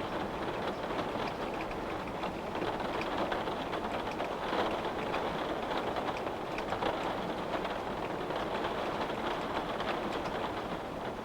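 Steady rain falling on a windowpane, a continuous patter of many small drop taps.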